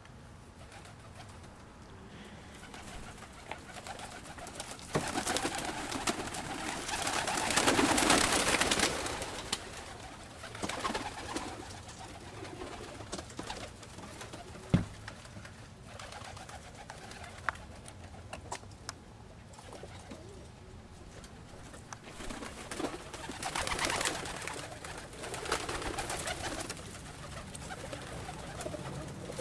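Domestic pigeons cooing in a loft. There are two louder spells of rushing noise, about a quarter of the way in and again near the end, and a single sharp click near the middle.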